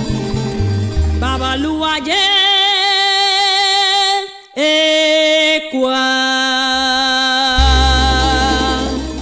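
Cuban son music from a women's sextet: voices singing long held notes with vibrato over a plucked bass line, breaking off briefly about halfway and then carrying on until the notes fade near the end.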